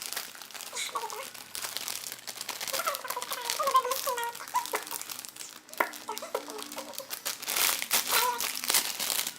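Plastic packaging crinkling and rustling repeatedly as a squishy toy is unwrapped by hand.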